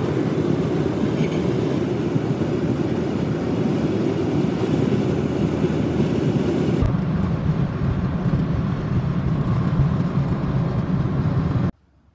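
Steady road noise of a car driving at freeway speed, heard from inside the car: a continuous low rumble of tyres and engine. The sound shifts in character about seven seconds in and cuts off abruptly near the end.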